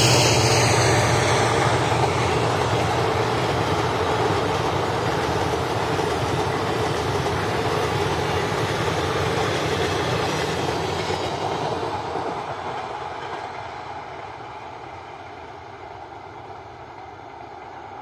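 Coaches of an Indian passenger express rolling past on the track with a steady rolling noise, which fades from about eleven seconds in as the train draws away.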